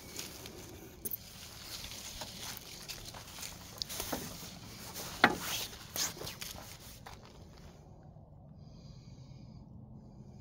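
Footsteps crunching on gravel and dry leaves, with irregular clicks and one sharp knock about five seconds in. The crunching stops about seven seconds in, leaving a faint low hum.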